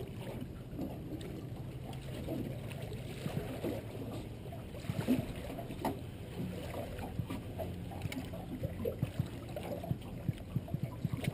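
Water sloshing and splashing alongside a boat's hull as a large redfish is worked into a landing net, over a low steady hum.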